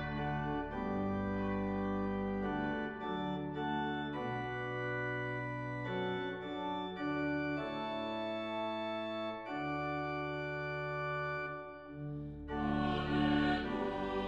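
Organ music: slow, sustained chords over deep bass notes, changing every second or so. Near the end it swells louder and brighter.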